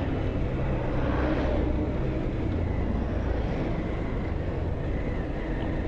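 Bajaj Pulsar 220F's single-cylinder engine running steadily on the move, under a constant rumble of wind and road noise.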